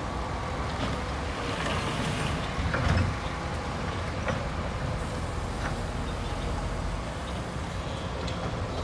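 Excavator's diesel engine running steadily under load while it shoves a steel sand-dredge pontoon across dirt. A few short knocks and creaks come from the hull, and the sound swells briefly about three seconds in.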